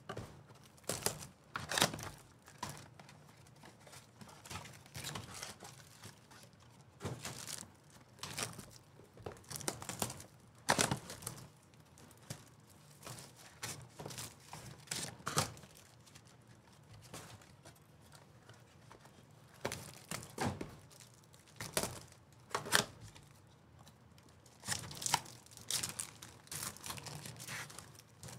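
Foil wrappers of 2024 Topps Chrome baseball card packs being torn open and crinkled by hand, in irregular short rips that come in clusters.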